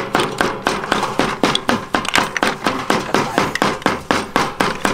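Cooked snail shells clicking and clattering against each other and the steel basin as hands dig through them and pick the meat out with bamboo sticks: rapid, irregular sharp taps, several a second.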